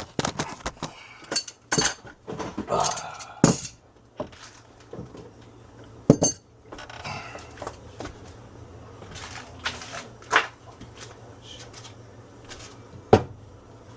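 Metal tools and objects clinking and knocking together as they are handled: a quick run of clatter in the first few seconds, then single knocks every few seconds over a faint steady low hum.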